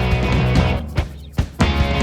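Background rock music with electric guitar and drums, an instrumental stretch with no singing.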